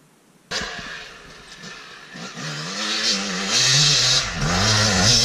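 Yamaha YZ250 two-stroke single-cylinder dirt bike engine, cutting in suddenly about half a second in and then revving up and down repeatedly as the rider accelerates toward the jump, growing louder as the bike comes closer.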